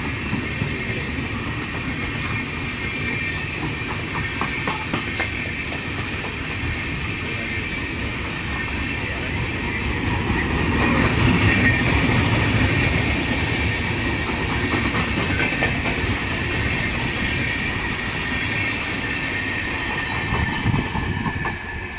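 Indian Railways passenger coaches rolling past, wheels clattering over rail joints under a steady high-pitched squeal. The noise grows louder about halfway through and eases as the last coach goes by near the end.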